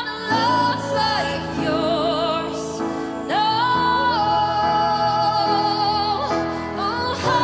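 A woman singing a slow worship song over piano, holding long notes with vibrato and sliding up into them, about a third of the way in and again near the end.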